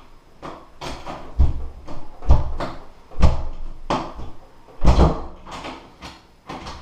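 Clicks and knocks from a privacy door lever latch set being worked by hand, about a dozen sharp knocks with four heavier thumps among them.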